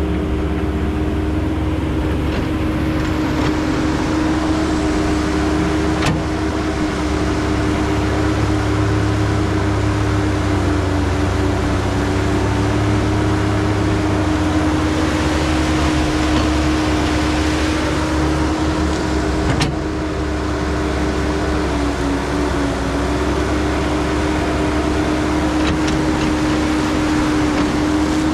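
Caterpillar hydraulic excavator working: its diesel engine drones steadily under a constant hydraulic whine as it digs and dumps soil, with a couple of sharp knocks.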